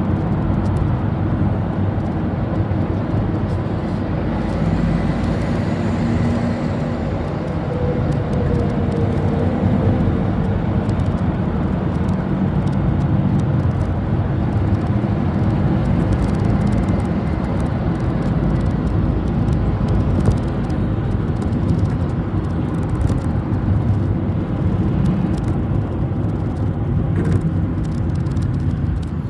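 A city bus under way, heard from aboard: steady engine and road rumble, with the engine note rising and falling a little as the bus changes speed, and light scattered rattles.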